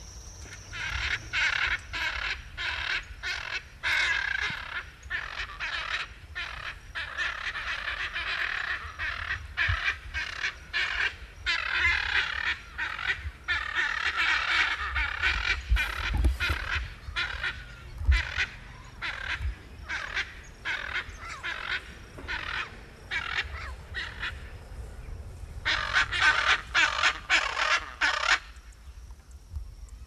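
A group of parrots giving harsh, squawking calls, many overlapping in quick succession. A little before the end there is a short lull, then a final burst of calls.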